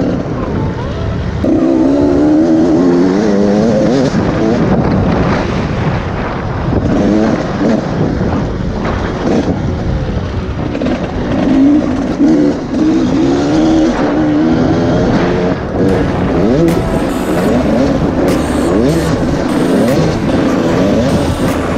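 2015 Husqvarna TC85's 85cc two-stroke engine revving hard and easing off over and over as the dirt bike is ridden around a motocross track, its pitch rising and falling with throttle and gear changes.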